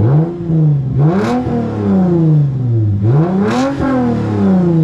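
Lexus IS250's V6 exhaust as the engine is revved in three throttle blips, each climbing quickly and falling back slowly toward idle, the first small and the next two higher.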